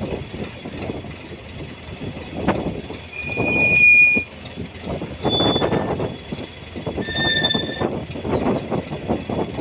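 Choppy sea water splashing and slapping against the side of a small fishing boat, in uneven surges about once a second, with wind on the microphone.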